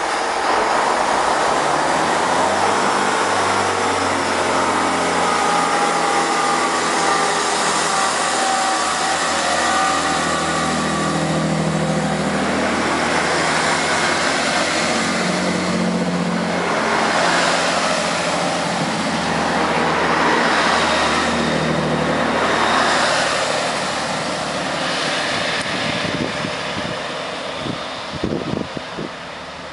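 Class 165 diesel multiple unit pulling out of the station, its underfloor diesel engines working as it gathers speed past the platform. The sound fades over the last few seconds as the train draws away down the line.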